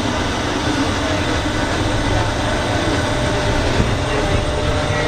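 Gatwick inter-terminal shuttle, a rubber-tyred people-mover train on a concrete track, running, heard from inside the car as a steady low rumble with some rattle from the bumpy ride.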